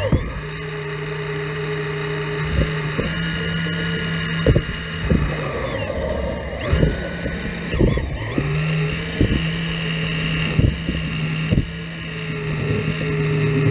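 Caterpillar 235 hydraulic excavator working, its diesel engine running steadily. The engine pitch sags under hydraulic load about six seconds in and picks back up about two seconds later. Frequent sharp knocks sound throughout.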